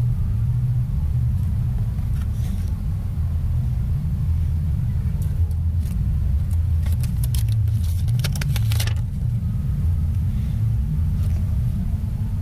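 A loud, steady low rumble, with light clicks and rustles from a laptop motherboard and its metal bracket being handled, clustered about seven to nine seconds in.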